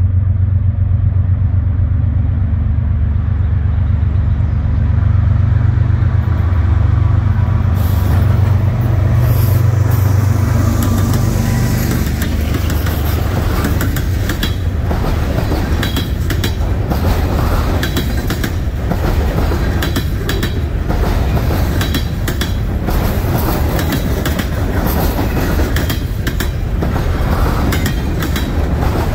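Norfolk Southern diesel locomotives pass with a heavy, steady engine rumble. About a third of the way in they give way to a freight train's empty trash container cars rolling by, their wheels clicking and clacking over the rail joints.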